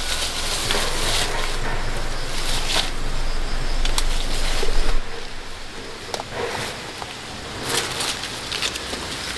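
Crackling and rustling of dry leaves and sticks as a woven basket and things beside it are handled on the forest floor, with birds calling around.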